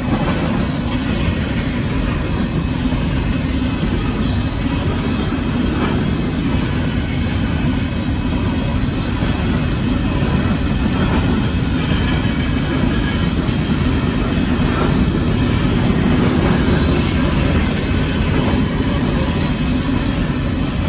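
Coal train hopper cars rolling past over a grade crossing: a steady, heavy rumble of steel wheels on the rails.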